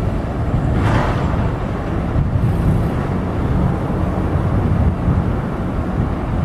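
R62A subway trains rumbling along elevated track, a steady low rumble, with a brief hiss about a second in.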